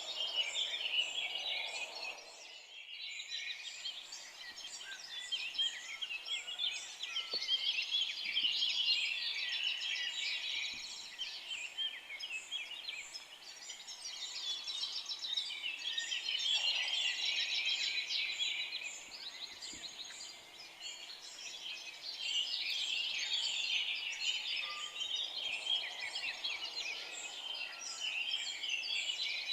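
Dawn-chorus-like birdsong from many forest birds at once: dense, overlapping high chirps and trills that swell and thin out every several seconds, with a few lower, softer calls among them.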